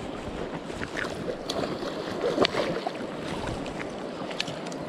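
Shallow river water sloshing and splashing around a landing net held in the current, with small splashes throughout and a louder splash about halfway through.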